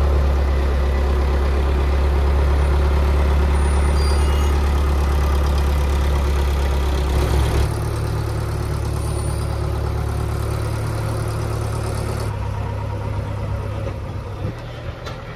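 Rolls-Royce Avon jet engines of an English Electric Lightning running on the ground: a loud, steady rumble and roar that drops abruptly in level about halfway through, and again a few seconds later.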